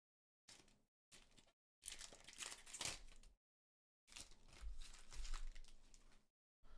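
Foil booster pack wrapper crinkling and being torn open: two short crinkles, then two longer, louder bouts of crinkling and tearing.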